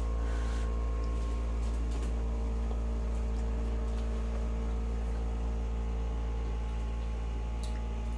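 Steady low hum with several faint steady tones above it, unchanging throughout, and a few faint soft ticks.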